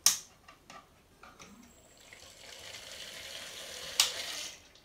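A sharp click, then the rushing sound of a PC water-cooling pump pushing coolant through the loop's tubing, building up from about two seconds in. A second click about four seconds in, after which the flow sound dies away: the pump is run in a short burst while the loop is being filled.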